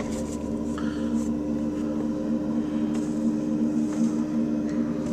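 Skid-steer loader with a snow plow blade, its engine running steadily as it pushes snow: a constant hum with a steady whine over it.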